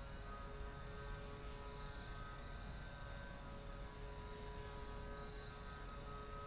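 A faint steady hum made of several held tones, with soft short high chirps about every three seconds.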